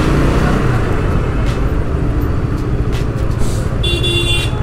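Steady rumble of road traffic and a vehicle running along a jammed mountain road, with a vehicle horn honking for under a second near the end.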